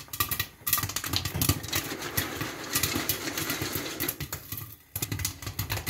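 Popcorn kernels popping fast in sugar syrup inside a covered stainless steel pot, a dense run of sharp pops. A little after halfway the pot is shaken on the gas stove grate, adding a rattle of popcorn against the lid and pot.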